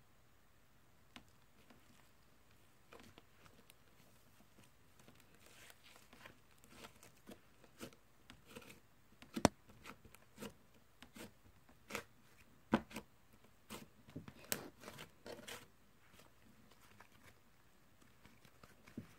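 Slime being pressed and squished by hand, giving scattered sharp pops and crackles that grow more frequent after about five seconds.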